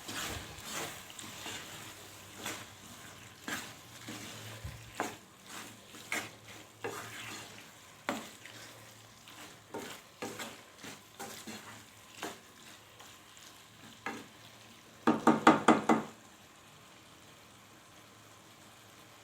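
A utensil stirring a seafood mixture in a pan, clinking and knocking against it at irregular intervals, with a quick run of loud knocks about fifteen seconds in.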